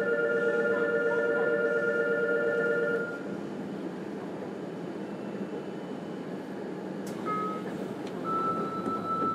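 Electronic warning buzzer sounding at a train's station stop: a steady chord of tones held for about three seconds, then a single high tone that begins near the end and holds. Beneath it runs the steady hum of the standing electric train.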